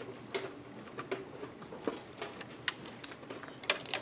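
Light, irregular clicks and ticks of a screwdriver working small motherboard screws loose, with a few sharper clicks later on.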